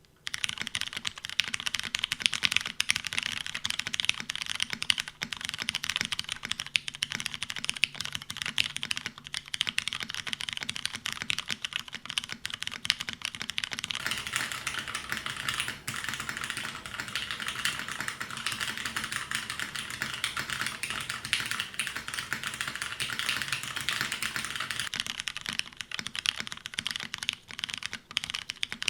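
Fast, continuous typing on a custom mechanical keyboard, a DN SBL with a copper bottom and aluminium plate, fitted with lubed Ergo Clear tactile switches and GMK keycaps: a dense stream of key clacks.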